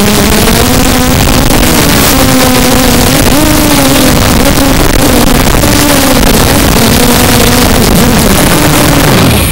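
Zabo 250 quadcopter's motors and propellers whining over a loud steady noise, the pitch wavering up and down with throttle. Just before the end the pitch falls steeply as the motors slow, with the quad down near the grass.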